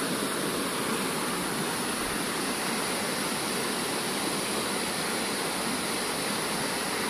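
Running water rushing steadily, from a small waterfall and a stream cascading over stones.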